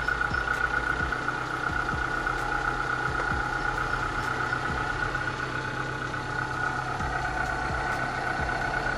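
2005 Suzuki APV's engine idling with the AC switched on, a steady high-pitched rough drone running over the engine hum. The owner takes the noise for a failed bearing in the AC compressor's magnetic clutch.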